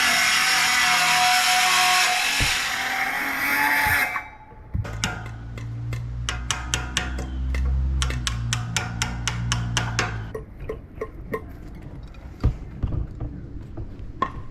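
A power tool runs loudly and cuts off abruptly about four seconds in. Background music with a steady beat follows.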